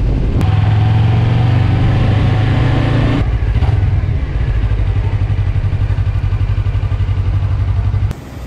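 Suzuki V-Strom 250's 248 cc parallel-twin engine running steadily, a low even hum. About three seconds in, the note turns to a faster pulsing, and it cuts off abruptly near the end.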